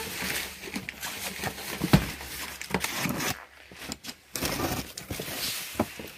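Cardboard box handled on a table, with one sharp knock about two seconds in as it is set down, and rustling and scraping of cardboard and packing tape around it.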